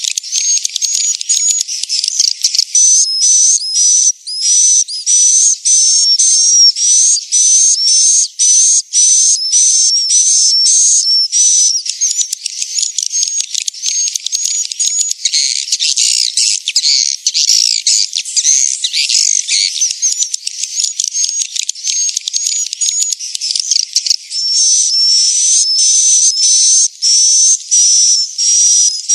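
Swiftlet calls: rapid, high-pitched twittering chirps with a wavering pitch, repeated in quick series with brief gaps and, through the middle, overlapping into a continuous chatter. It is a swiftlet-house lure recording of the 'inap panggil' kind, played to call in young and adult swiftlets and get them to roost.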